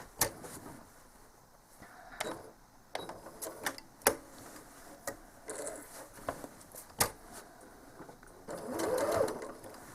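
Home sewing machine stitching during free-motion quilting, quiet, with scattered sharp clicks and a louder stretch near the end.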